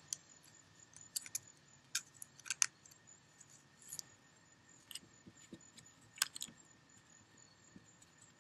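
Tape being picked and peeled off cardboard: faint, scattered crackles and short rasps, roughly one a second.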